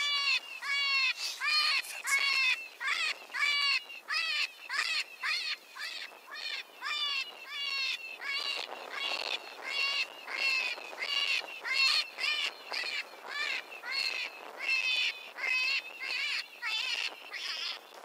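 Electronic predator caller playing a rabbit distress call to lure coyotes: a wailing, squealing cry repeated over and over, about twice a second.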